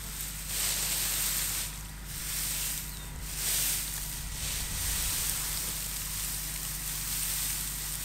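Dry wheat straw rustling and crackling as hands pull apart and lift a straw windrow, in uneven swells of noise, over a faint steady low hum.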